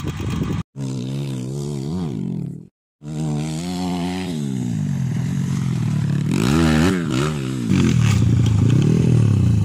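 Dirt bike engine revving hard on a dirt track, its pitch climbing and dropping again and again as the rider accelerates and shifts through a corner, loudest near the end. The sound cuts out twice for a moment near the start.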